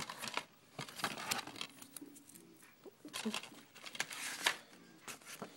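A plastic DVD case being handled and turned over in the hands: scattered light clicks, taps and rustles.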